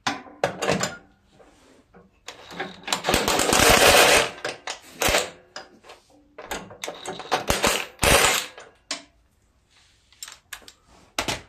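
Cordless power tool running in short bursts with a rapid rattle, driving the 9/16 nut onto the bolt that holds the drive-belt guard under a Craftsman riding mower. The longest burst comes a couple of seconds in, then shorter ones follow.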